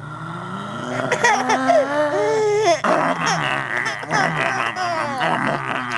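A baby boy laughing hard at his father's play: a drawn-out rising vocal sound in the first half, then quick, choppy bursts of laughter from about halfway through.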